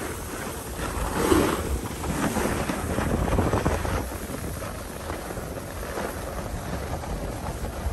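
Wind rushing over the microphone of a moving rider, with a snowboard scraping and hissing over packed, groomed snow during the descent; the noise swells louder about a second in.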